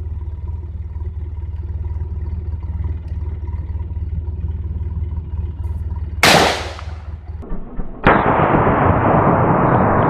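Anderson Arms AR-15 rifle in .223 firing a single shot about six seconds in, a sharp crack with a short ringing tail. A steady low rumble runs before the shot, and from about eight seconds a steady hiss takes over.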